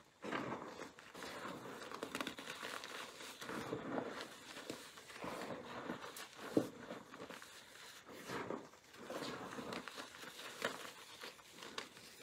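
Hands digging into and squeezing a heap of crumbled gym chalk: steady dry crunching and crackling, with one sharper crack a little past halfway.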